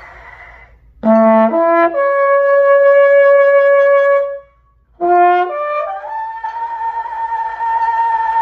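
Trombone lip slurs: a quick breath, then a fast upward slur through several notes to a held high note. After a short pause, a second upward slur climbs to a still higher sustained note, the double B-flat, and slurs back down near the end.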